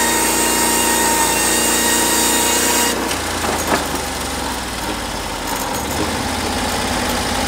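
Norwood HD36V2 portable band sawmill running, its engine under load while the band blade cuts a log; about three seconds in the cutting hiss stops suddenly and the engine settles to a steady idle, with a single knock shortly after.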